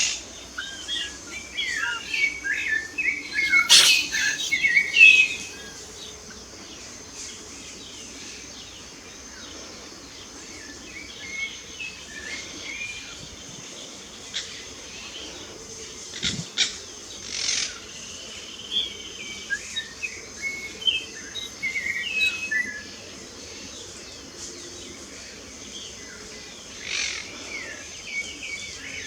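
Several wild birds singing and chirping, with short warbling phrases, busiest and loudest in the first five seconds and then scattered calls, over a steady faint high hiss. A few sharp clicks stand out about 4 seconds and 16 seconds in.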